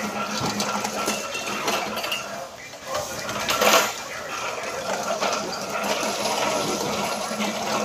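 Metallic clinking and clattering from a steel hand pallet jack being wheeled over a concrete floor while cartons are handled, with a steady hum underneath. The loudest clatter comes a little under four seconds in.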